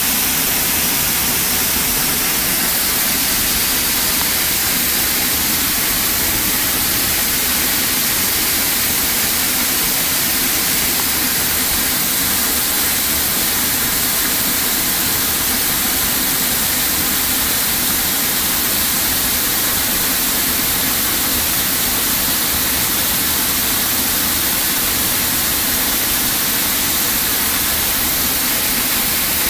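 Waterfall heard from behind its falling curtain of water: a loud, steady rush of water pouring down and splashing into the pool below.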